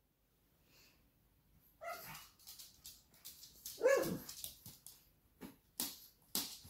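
Pug giving two short barks, about two and four seconds in, the second the louder, followed by a couple of light clicks.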